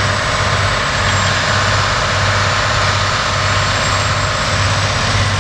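John Deere 9330 tractor's diesel engine running steadily under load while it pulls a compactor through tilled soil, with a low hum that swells and eases every second or so.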